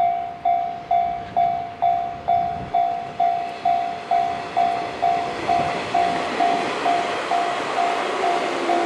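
Level crossing warning bell ringing evenly about twice a second and slowly getting softer, while a JR 185 series electric train runs past with rising wheel-on-rail noise.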